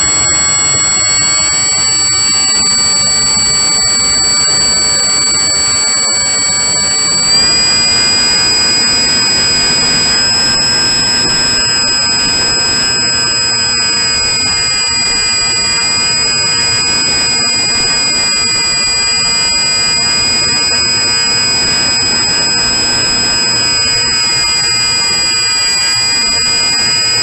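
Electric motor and propeller of a Skyhook Discovery Mini glider whining steadily under power, picked up by the onboard camera. The pitch steps up about seven seconds in and then holds.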